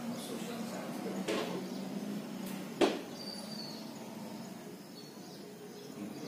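Two sharp taps of a plastic protractor against a chalkboard, about a second and a half apart, the second louder, over a low steady hum.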